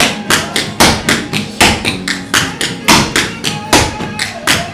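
Tap shoes striking a hard floor in a quick, uneven rhythm of sharp taps, about three or four a second, danced by a tap dancer.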